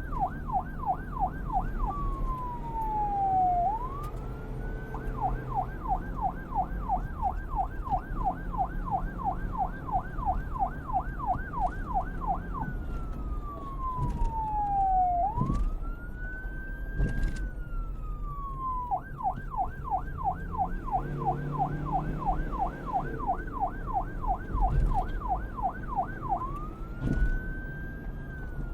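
Electronic police siren alternating between a fast yelp, about four up-and-down sweeps a second, and a slower wail that glides down and back up over a second or two. A steady low rumble runs underneath.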